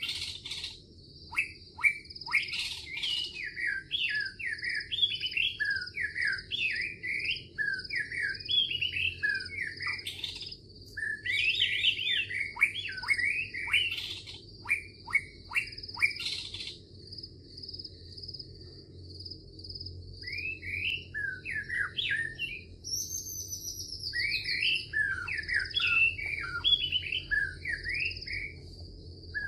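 Birds chirping and twittering in quick varied calls over a steady, rapid high-pitched pulsing trill like an insect's, with a low rumble underneath. The chirping stops for a few seconds past the middle while the trill goes on.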